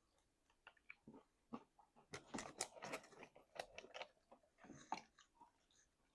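Close-up chewing and crunching of chicken wings: a few scattered mouth clicks, then a dense run of crisp crunching bites from about two seconds in, tailing off near the end.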